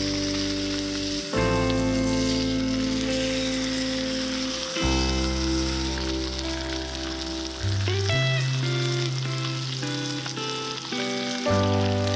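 Thick bone-in steak sizzling steadily in a cast-iron skillet, under background music of sustained chords that change every few seconds.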